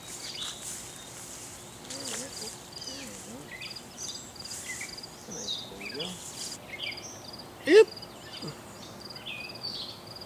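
Songbirds chirping and singing over an evenly repeated high chirp. A short, loud rising call about eight seconds in is the loudest sound.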